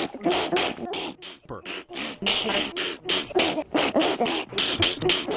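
A girl sneezing over and over in a quick run of short sneezes, several a second with hardly a pause: the constant sneezing of a rare sneezing disorder.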